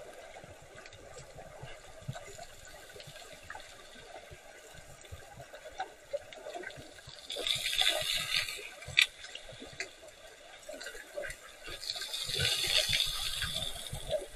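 Muffled underwater water noise picked up inside an action camera's waterproof housing, with two louder rushing swells of water, one about halfway through and one near the end, and a single sharp click just after the first swell.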